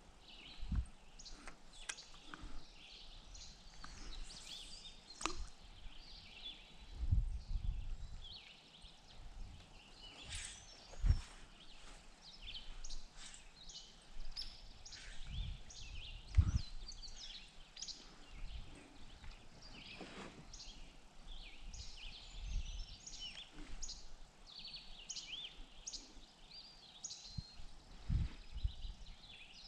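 Birds chirping and calling over steady outdoor background noise, with scattered low thumps and knocks throughout.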